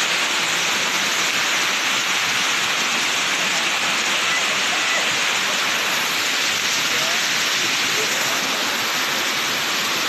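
Waterfall cascading over rock into a pool: a steady, even rush of falling water.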